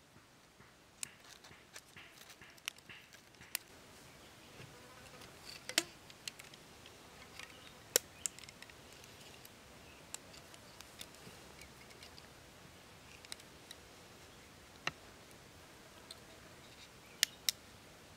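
Scattered light clicks and taps from wooden stakes and rubber bands being handled and bound onto a stick. The sharpest clicks come about six and eight seconds in and twice in quick succession near the end.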